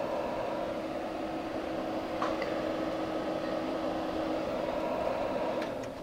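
SMART UX80 projector's cooling fan running steadily through its post-shutdown cool-down, with a faint steady tone over the whir. It winds down and stops near the end as the projector drops into standby.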